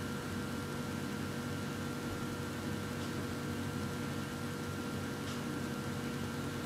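Steady room tone: a low electrical hum and hiss with a faint constant whine, and no speech.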